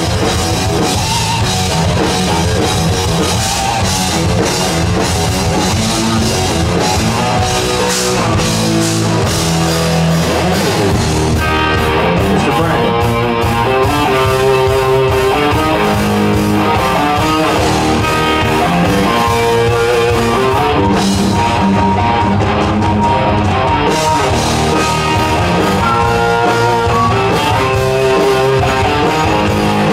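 Live rock band playing an instrumental passage: electric guitars and bass over a drum kit, with no singing.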